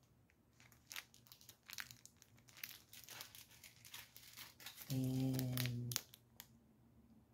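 Thin clear plastic packaging crinkling and rustling in the hands as small bags are handled and pulled open, a quick run of small crackles. A drawn-out spoken "and" comes about five seconds in.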